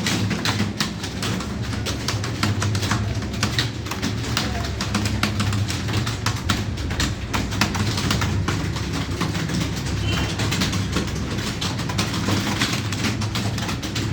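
Fast, continuous typing on a computer keyboard: a dense, irregular stream of key clicks over a steady low hum.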